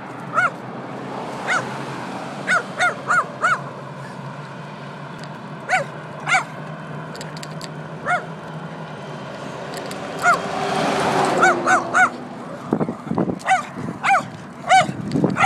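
Small dog yapping as it chases a bicycle: short high barks, some single and some in quick runs of three or four, over a steady rush of riding noise that swells about ten seconds in.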